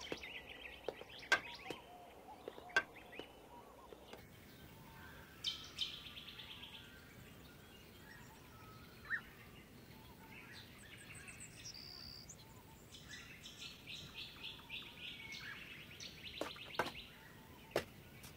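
Small birds chirping in repeated quick trills. In the first few seconds a few sharp knocks sound: footsteps and a walking stick tapping on a stone floor.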